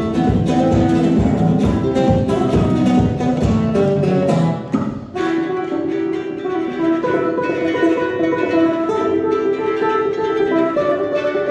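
Two acoustic guitars played live as a duo. They start with fast, hard, rhythmic strumming with percussive strokes. About five seconds in this breaks off and gives way to a lighter passage of picked melody over held notes.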